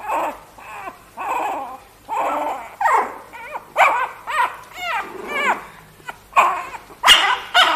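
Dog whimpering and yelping in a steady string of short, high, rising-and-falling cries, about one or two a second. A sharp knock about seven seconds in.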